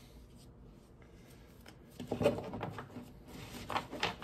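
Handling noise from trading cards and packs: a run of soft clicks and rustles that starts about halfway through and comes in small clusters.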